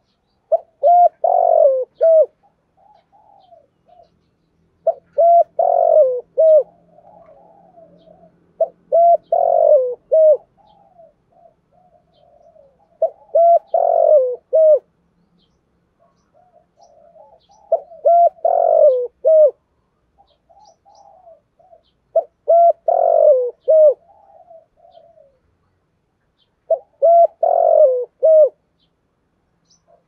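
Spotted dove cooing: seven song phrases about every four seconds, each a loud cluster of coos followed by a few softer trailing notes.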